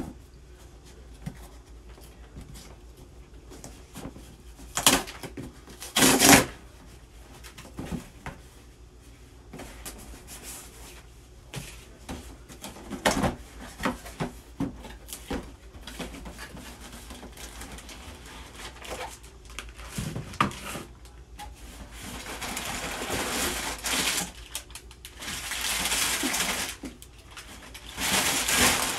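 Cardboard shipping box being pried and torn open by hand, with scattered knocks and tearing strokes. Near the end, a longer stretch of rustling as foam packing and plastic bags are pulled out of the box.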